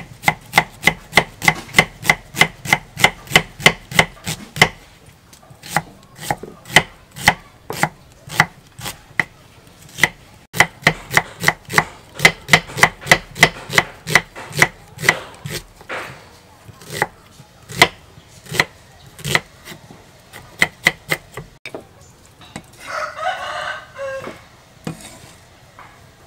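Kitchen knife slicing an onion on a thick round wooden chopping board: quick, even knocks of the blade on the wood, about four or five a second, in runs with short pauses. Near the end a rooster crows.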